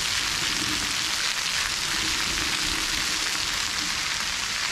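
Steady hiss of running water at an elephant bathing place, with faint voices in the distance.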